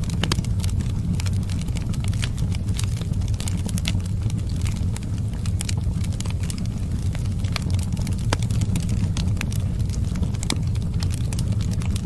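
Wood fire crackling, with frequent irregular sharp pops and snaps over a steady low rumble.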